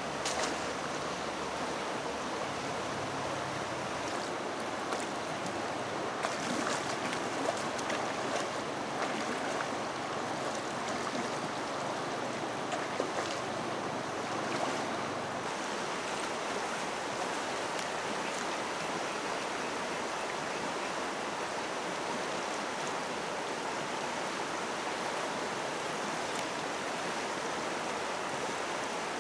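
Fast-flowing river water rushing steadily, with a few brief splashes about six to fifteen seconds in.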